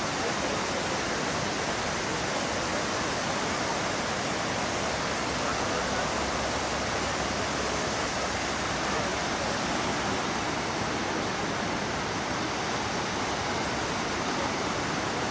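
Waterfall: falling water rushing steadily at an even level.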